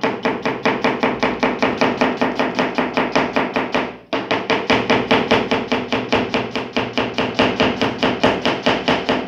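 Kitchen knife rapidly chopping an onion fine on a plastic cutting board, about five quick knocks a second, with a brief pause about four seconds in.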